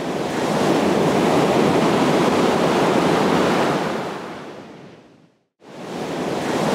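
Loud, steady rushing noise, like breaking surf, that swells in, fades away about five seconds in, then swells up again and cuts off suddenly.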